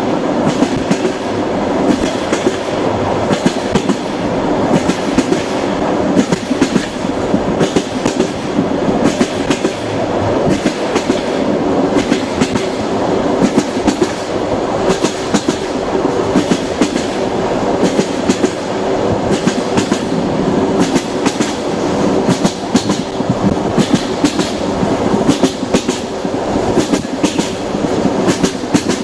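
Russian passenger train's wheels clattering over the rails, heard from inside the carriage: a steady rumble with frequent sharp clicks.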